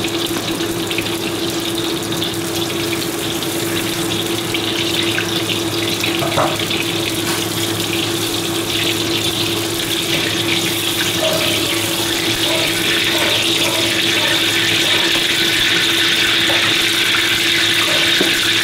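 Hot oil sizzling steadily in a wok as fried eggplant pieces are lifted out with a ladle, over a steady low hum.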